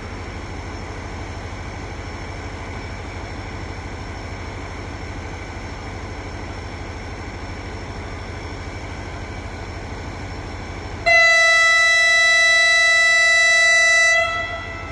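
Diesel locomotive idling with a steady low rumble. About eleven seconds in, its horn sounds one long, loud blast on a single note, lasting about three seconds before cutting off.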